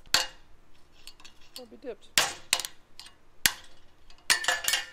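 Several sharp metallic knocks and clinks of a steel screwdriver jabbed against a steel suspension arm while the burnt remains of a pressed-out rubber bushing are cleared from its eye. The knocks are spaced irregularly, with a quick ringing cluster near the end.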